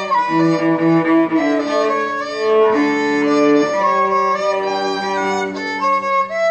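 Violin and cello playing a duet, held bowed notes moving over a lower cello line, with the music stopping near the end.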